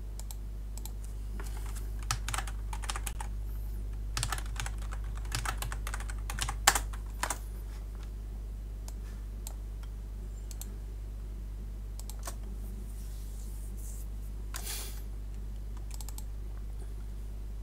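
Computer keyboard typing: a quick run of keystrokes, the folder name being typed, then a few scattered single clicks, over a steady low electrical hum.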